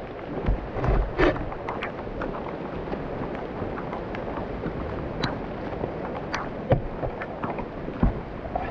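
Heavy rain falling steadily, with scattered sharp taps and knocks over it.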